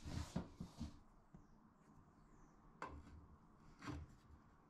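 Faint handling sounds as a small metal hook bracket is fitted into a hole in a cot's end panel: a brief rustle and a few soft knocks at the start, then a sharp click about three seconds in and a soft knock just after.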